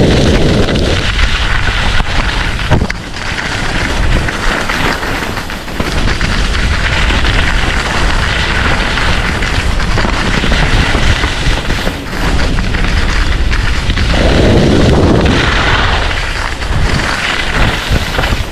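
Wind buffeting the microphone of a camera on a downhill skier, with the hiss and scrape of skis carving over groomed snow that swells and fades with the turns.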